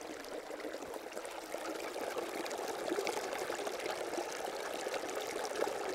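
Water trickling and pouring steadily, a splashy hiss full of small drips and bubbles that grows a little louder about a second and a half in.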